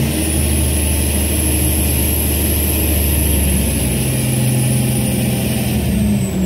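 Kenworth T800 truck's diesel engine running steadily while its tilting lumber deck lowers, the engine note changing about four seconds in.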